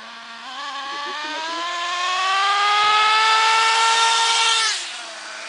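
Small two-stroke nitro glow engine of a 1/8-scale RC car accelerating hard, its pitch rising steadily for about four and a half seconds. Near the end it drops sharply back to a low, idle-like note.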